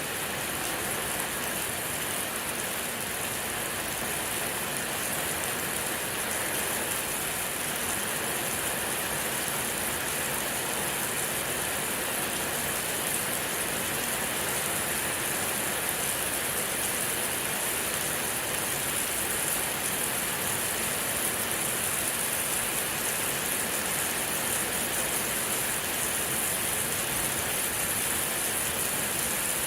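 Steady rain from a thunderstorm falling on a surface, a constant hiss that slowly grows a little louder.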